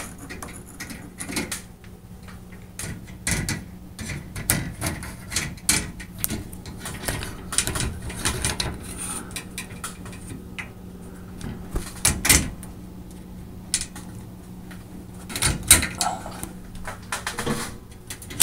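Fluorescent tube being twisted out of a ceiling fixture's lamp sockets and an LED tube fitted in its place: irregular clicks, knocks and rattles of plastic and glass against the metal fixture, with a steady low hum underneath. The sharpest knocks come about 12 seconds in and again near 15 seconds.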